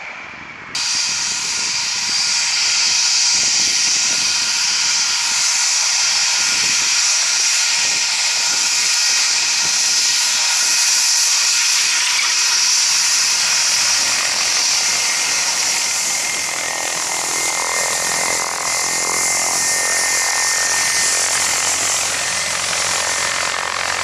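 Jet engines of an Airbus A320-family airliner running at taxi power: a steady loud hiss with high whining tones, starting abruptly under a second in. A low hum joins about halfway through.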